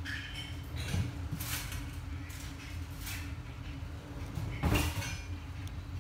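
Covered pot braising on a cooktop: a steady low hum with several short noisy bursts, the loudest a little before the end.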